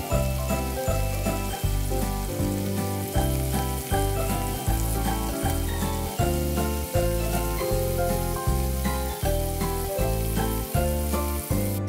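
Pork ribs sizzling as they fry in oil in a wok, under background music with a steady bass beat of about two notes a second.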